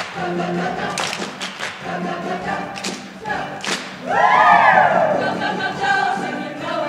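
Choir singing to music, cut through by regular thumps. About four seconds in, many voices rise into a loud whoop whose pitch slides down.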